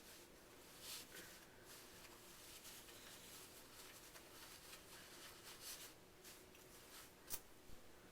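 Near silence with faint rustling of a silk bandana being handled and tied on the head, and one small sharp click near the end.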